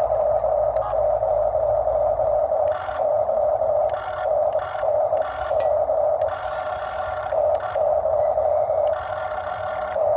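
A steady mechanical drone from working machinery, broken several times by brief, rougher strains where the pitch shifts, as under changing load.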